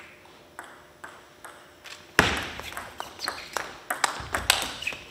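Table tennis rally: a few faint ticks, then from about two seconds in a sharp hit and a quick run of clicks as the ball strikes rackets and table, two to three a second.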